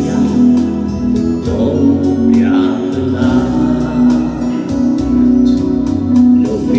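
Christian vocal group of men and women singing a gospel song in harmony, with music behind the voices.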